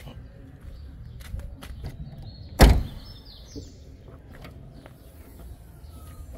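A car door shutting with a single loud thump about two and a half seconds in, among scattered small clicks and handling noises.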